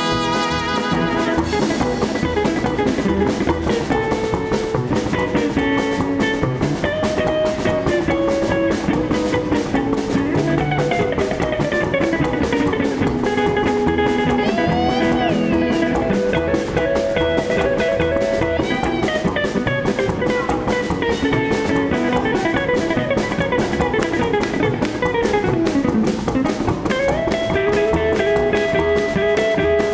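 Live small band playing an instrumental break in a light swing number, with a guitar taking the lead over drum kit and bass.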